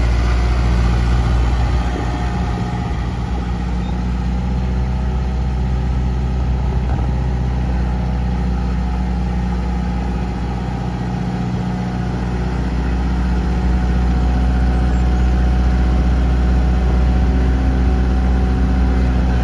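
Kubota L5030 HST loader tractor's four-cylinder diesel engine running steadily as the tractor drives slowly over gravel. The sound drops a little a couple of seconds in and grows louder again about two-thirds of the way through.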